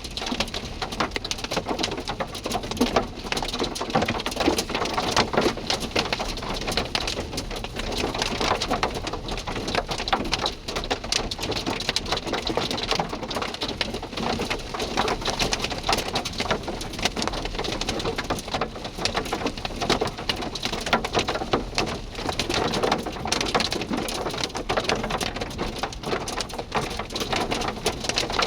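Wind-driven hail pelting hard surfaces in a dense, continuous clatter of small impacts, with strong gusting wind.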